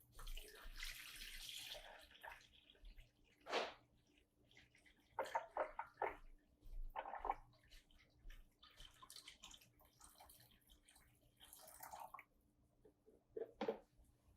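Water being poured into a Black & Decker 12-cup drip coffee maker's water reservoir, in a stretch about two seconds long at the start and again around the middle. A few light knocks and clatters come in between.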